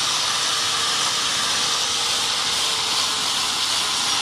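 A steady, even hiss of noise that does not change, strongest in the high register.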